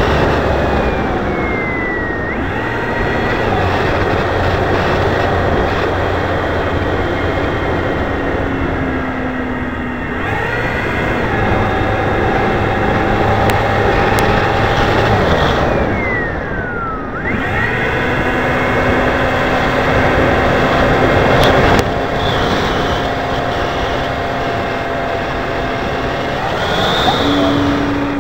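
The onboard sound of a scratch-built foam RC Vulcan in flight: its motor runs at a steady pitch that shifts with the throttle and glides sharply downward twice, about a second in and again around sixteen seconds in. Heavy wind rush runs underneath, recorded by the keychain camera taped to the nose.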